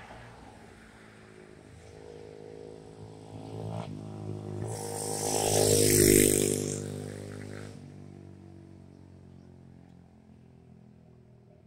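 A motor vehicle passing close by: engine and tyre noise build to a peak about six seconds in, then fade away.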